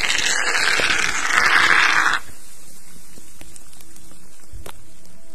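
A loud rustling hiss for about two seconds that cuts off abruptly, followed by faint scattered ticks.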